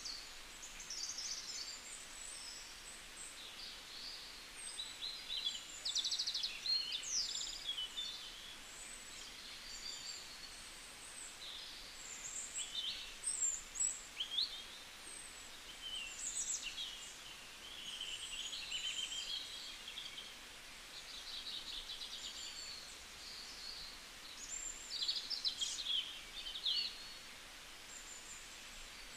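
Small birds chirping and singing: many short, high calls, quick trills and whistles, one after another, over a faint steady hiss.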